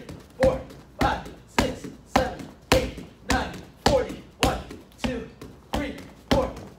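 Rapid roundhouse kicks striking a freestanding heavy bag: a steady run of sharp thuds at a little under two kicks a second.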